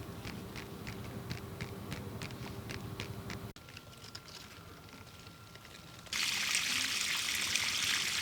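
Water running out in a steady hiss, starting suddenly about six seconds in; before it, a run of soft clicks about three a second over a faint hum, then a hard cut to a quiet stretch with a faint high tone.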